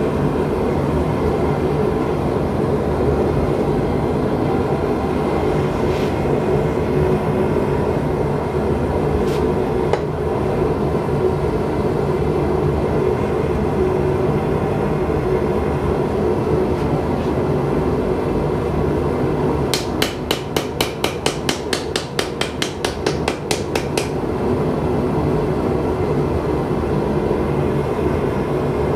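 Steady rushing noise of a forge running, with a quick, even run of about twenty hammer blows on steel, around five a second, about two-thirds of the way through.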